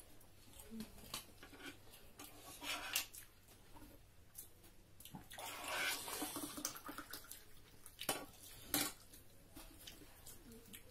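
Eating sounds: fingers squishing and mixing rice with wet curry on plates, with scattered clicks and knocks of plates and a spoon, and a longer wet rustle about halfway through.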